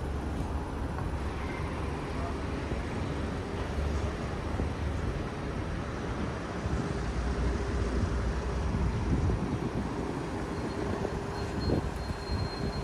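City street ambience: a steady rumble and hiss of passing car traffic, with a faint high tone near the end.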